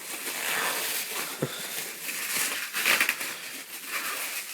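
Packing material being handled during an unboxing: paper and wrapping rustling and crumpling in uneven bursts.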